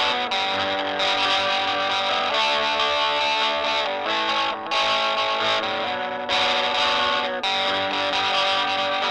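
Music led by a distorted electric guitar, playing a melodic line of sustained notes that change every second or so, with short breaks between phrases.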